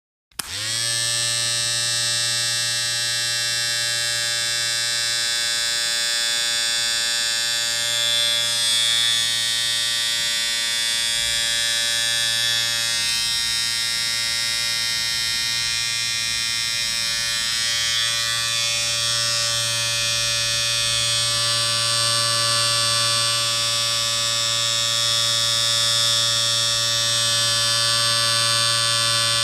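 Electric shaver switched on just after the start and buzzing steadily, a high hissing buzz over an even hum.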